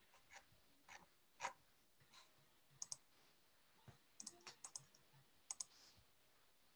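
Near silence with faint, irregular clicks, some single and some in quick clusters of two to four.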